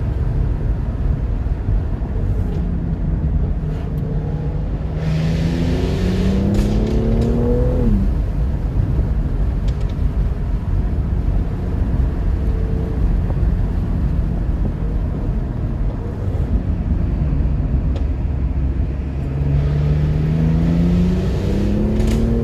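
Jaguar F-Type V8 engine running with a steady low rumble, accelerating twice with the pitch climbing: about five seconds in, dropping off sharply near eight seconds, and again near the end.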